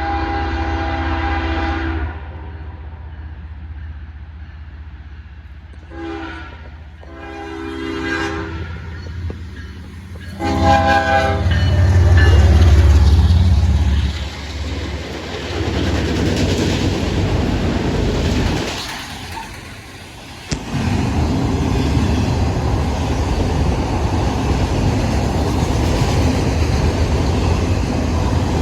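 Norfolk Southern locomotive's air horn blown as a chord four times: long, short, long, long. The locomotive then passes with a loud low engine rumble, followed by the steady rumble and clatter of rail cars rolling by.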